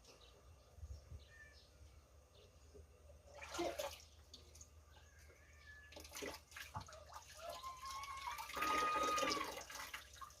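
Water pouring and splashing in uneven spells: a short gush a little over three seconds in, then a longer pour from about six seconds in that is loudest just before the end.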